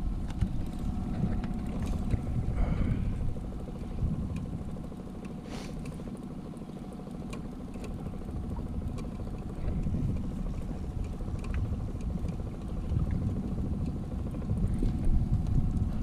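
Boat motor running steadily at trolling speed, a low drone with water and wind noise over it and a few light knocks.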